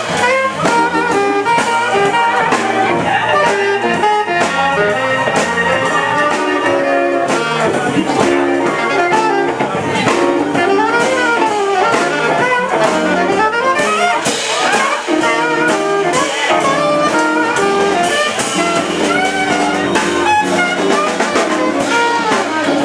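Live jazz band playing: saxophone over guitar, electric keyboard and drum kit, with a continuous melody line and steady drumming.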